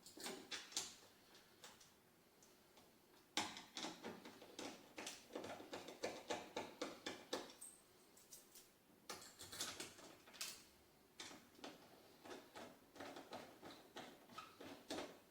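Screws being driven in by hand to fasten an outrigger mounting bar to a kayak: runs of quick, faint clicks and ticks, several a second, with a pause in the middle.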